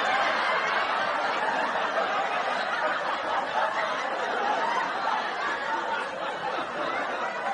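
A crowd of people laughing, a dense, steady wash of many voices with scattered chatter, easing off slightly near the end.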